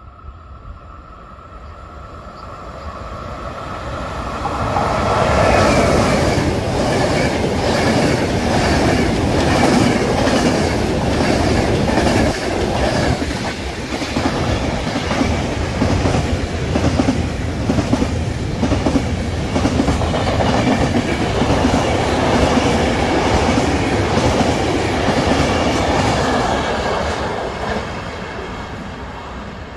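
Freight train of flat wagons loaded with steel rails passing a station platform: it grows louder as it approaches, then its wheels clatter over the rail joints in a steady rhythm. The sound fades as the train moves away near the end.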